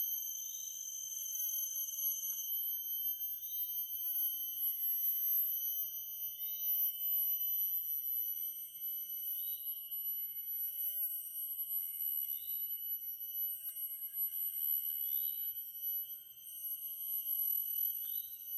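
Forest insects droning in steady, high-pitched tones, with a short rising chirp about every three seconds alternating with a brief rapid trill.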